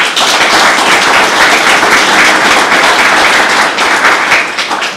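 Audience applauding: dense, steady clapping from a seated crowd that starts suddenly and dies away near the end.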